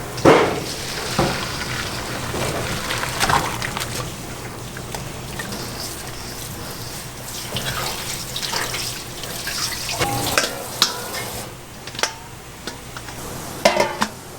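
Water running from a tap, with several sharp knocks and clatters over it and a low steady hum underneath.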